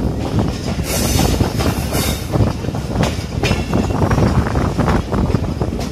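Passenger train running along the track, heard from a carriage's open window: a steady rumble of wheels on rail with a few sharp clacks.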